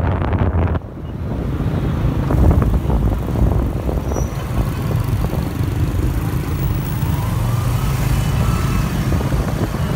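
Motor scooter running at riding speed in city traffic, heard from the pillion seat, with wind buffeting the microphone and the steady hum of surrounding motorbikes and cars.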